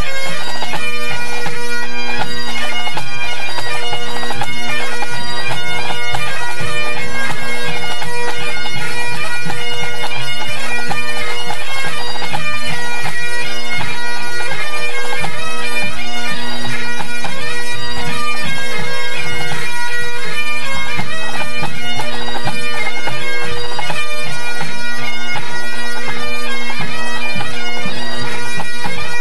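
A pipe band's Great Highland bagpipes playing together at a tune-up, loud and unbroken: the drones hold one steady tone while the chanters run through a tune above them.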